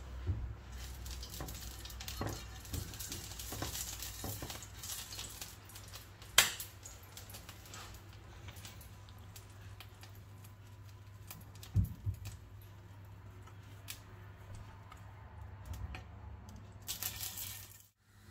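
Oil heating in a grill pan with faint sizzling, among kitchen handling sounds: a sharp clack about six seconds in, a dull knock near twelve seconds, and a brief louder hiss near the end.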